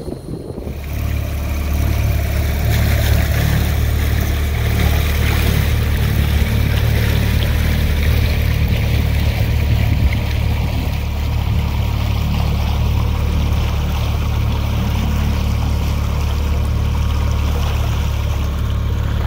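Motorboat engine running steadily at low speed: a constant low hum with the rush of water beneath it.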